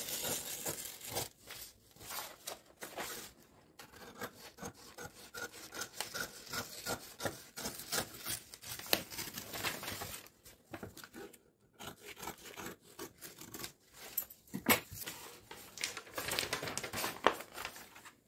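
Sewing scissors cutting through brown pattern paper in a run of irregular snips, with the paper rustling and scraping on the table. Near the end the paper is slid and smoothed flat by hand.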